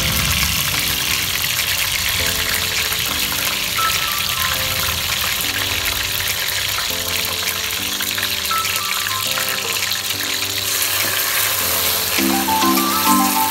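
Tomato pieces frying in hot oil in a steel pot, a steady sizzling hiss, under background music.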